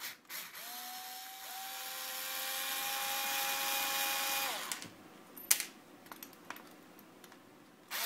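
Ozito cordless screwdriver with a number 10 Torx bit whirring for about four seconds as it backs a small screw out of a plastic housing, then winding down. A sharp click follows about a second later.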